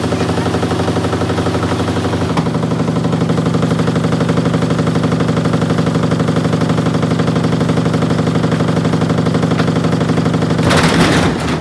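Samsung washing machine running with heavy bricks in its drum, making a loud, fast, continuous machine-gun-like rattling and banging. A brief harsher crash comes near the end.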